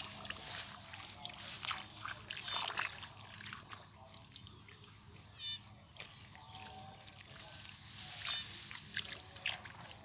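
Hands groping and scooping through shallow muddy water in a rice-field hollow: irregular sloshing, trickling and small splashes.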